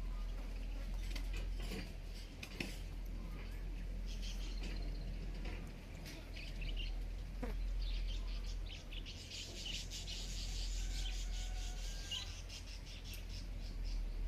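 A pet parrot working at seeds with its beak: a run of small dry clicks and scrapes, thickening into a stretch of rapid scratching about two-thirds of the way through, with a few faint chirps. A steady low hum runs underneath.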